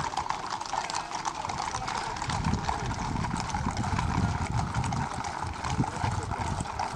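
Many horses' hooves clip-clopping at a walk on a paved road, a dense run of overlapping hoof strikes. A low rumble swells from about two seconds in.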